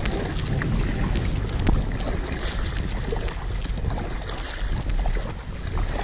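Strong wind buffeting the microphone, with water splashing as a kayak paddle strokes beside an inflatable kayak and a few short knocks.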